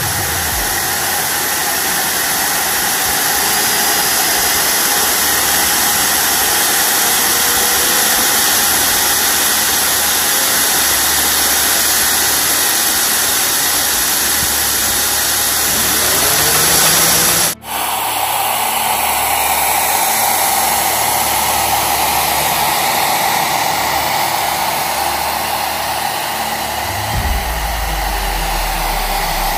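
Electric 'turbine' of a scale RC pulling tractor, made from electric motors on 4S power to mimic a gas turbine, running with a steady turbine-like whoosh and high hiss. The sound cuts out for an instant about two-thirds of the way through, and a low rumble joins near the end.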